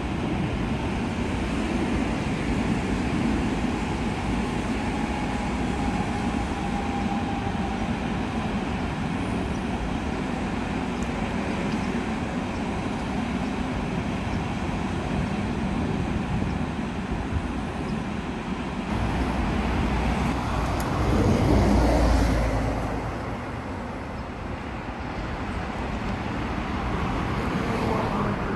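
Electric commuter train running past on the tracks, giving a steady rumble of wheels and running gear. About twenty seconds in, a louder low rumble swells and then fades.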